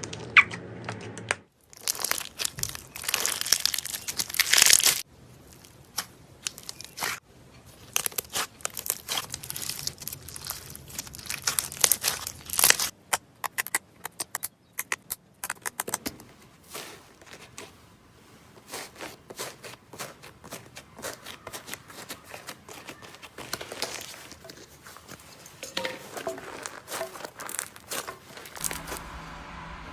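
Slime being squeezed, poked and stretched by hand, giving dense runs of quick clicks and pops, loudest in a few bursts near the start and about halfway through.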